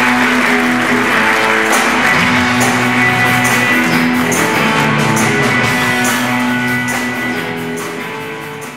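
Live rock band playing: electric guitars, bass and drums with cymbal hits, fading out over the last few seconds.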